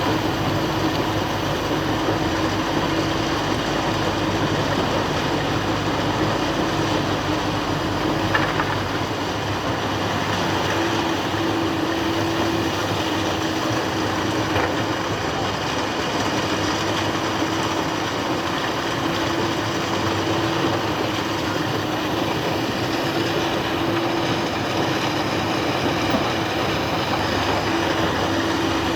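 Excavator engine running steadily, with a faint hum that drops out and returns every few seconds.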